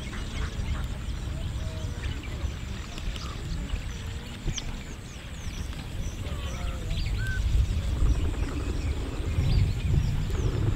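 Birds chirping and calling with many short, scattered chirps over a steady low rumble that grows louder in the last few seconds.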